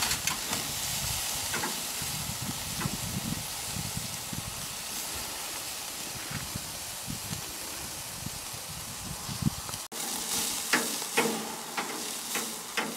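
Marinated turkey breast and sausages sizzling on a charcoal grill's grate, a steady hiss. After a cut about ten seconds in, a few sharp clicks of metal tongs turning the meat on the grate.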